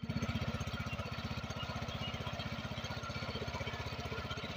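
Small single-cylinder engine of a power sprayer running steadily with a rapid, even firing beat, driving the pump that pressurises the termiticide for spraying.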